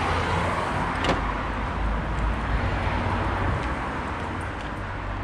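Steady low rumble of vehicle noise, with a single sharp click about a second in and a few faint ticks.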